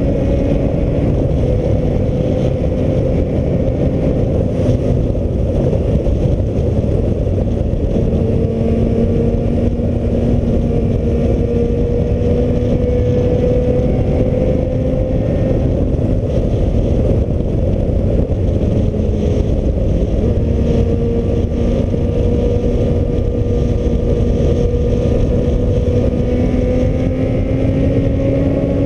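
Heavy wind rushing over the microphone on a moving Suzuki Bandit motorcycle, with the inline-four engine humming underneath. The engine's pitch climbs slowly, drops back about eight seconds in and again about twenty seconds in, then climbs again.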